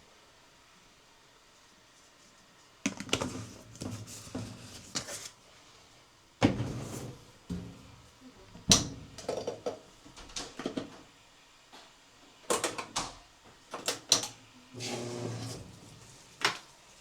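Household handling sounds: scattered knocks and clicks with some rustling, beginning about three seconds in after a short quiet stretch.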